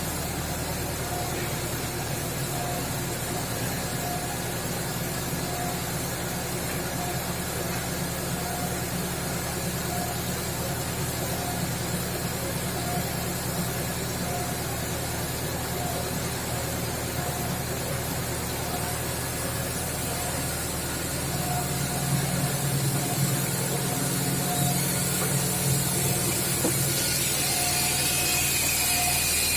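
Motor of a sand-lifting hoist machine running steadily, with a short high squeak repeating about every second and a half. About two-thirds of the way through it grows louder and deeper, and a hiss comes up near the end.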